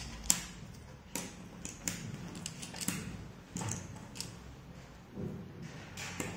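Cardboard jigsaw puzzle pieces being handled and pressed into place: a dozen or so irregular clicks and taps.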